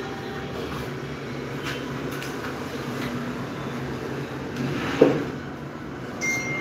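Wooden boards being handled on the floor, with a few light knocks and one sharp wooden knock about five seconds in, over a steady low background hum.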